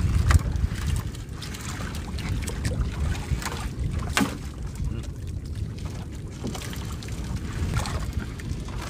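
Wind rumbling on the microphone at sea, heaviest in the first second, with a few sharp clicks and knocks from handling a fishing net as it is hauled in.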